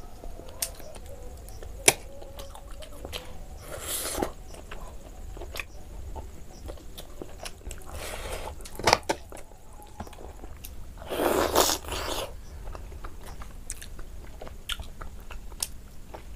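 Close-up mouth sounds of a person eating rice and chicken curry by hand: wet chewing and frequent lip smacks and clicks, with a few louder, longer noisy stretches of chewing about 4, 8 and 11 seconds in.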